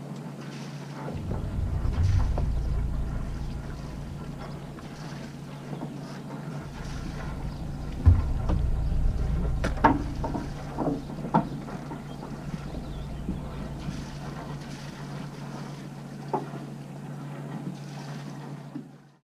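Wind gusting on the microphone over a steady low hum, with a few sharp knocks and clicks of deck gear and mooring lines as a sailboat is made fast to a finger pontoon.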